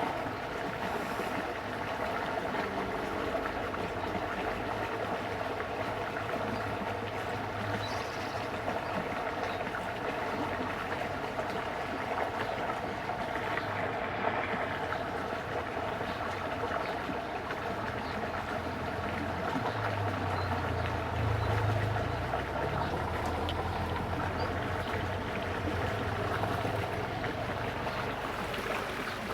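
Steady rush of water flowing in a drainage ditch, with a low motor hum that swells briefly about two-thirds of the way through.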